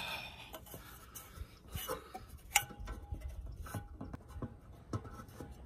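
Light knocks and clinks from a ladder as a person climbs its rungs. The loudest is a sharp metallic clink about two and a half seconds in, followed by a faint ringing tone.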